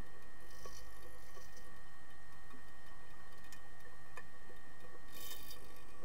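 Underwater pool ambience heard through a submerged camera: a steady hum with scattered sharp ticks, and two bursts of bubbling hiss, one near the start and one near the end, as divers' air bubbles pass.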